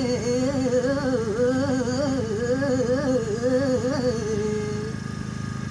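A man singing a long, drawn-out vowel of a Telugu devotional song, the pitch weaving up and down in quick ornaments before it settles and fades about five seconds in. A steady low hum runs underneath.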